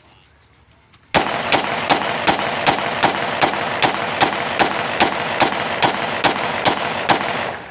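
A 30-bore (7.62×25 mm Tokarev) pistol fired in a rapid string of about seventeen shots, some two and a half a second, starting about a second in and stopping near the end.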